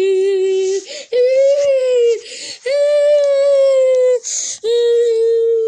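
A child's voice holding long wordless sung "ooh" notes, four in a row of about a second each, the pitch swelling slightly, with short breaths between them.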